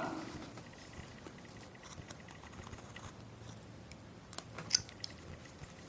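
Quiet cutting with a hand carving tool as it pares small chips from a wood carving: faint crackling, then a few sharp clicks a little past four seconds in.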